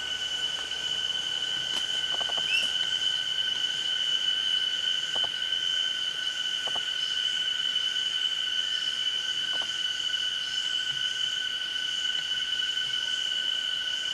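Steady, unbroken high-pitched insect drone, with a few faint short bird chirps and light clicks.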